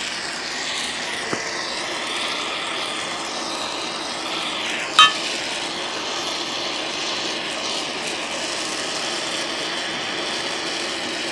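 An oxy-fuel torch burning with a steady rushing hiss as its low flame is played over a ceramic melting dish to preheat it gently so it won't crack. A faint click a little over a second in and a sharp click about five seconds in.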